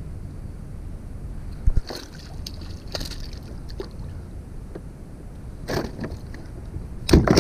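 Handling noise on a plastic fishing kayak: knocks of gear against the hull and water splashing beside the boat, over a steady rumble of wind on the microphone. There is a sharp knock a little under two seconds in and a louder cluster of knocks near the end.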